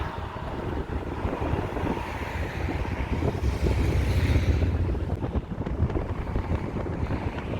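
Car traffic passing over a bridge, a steady mix of engine and tyre noise, with wind buffeting the microphone; the low rumble swells about halfway through.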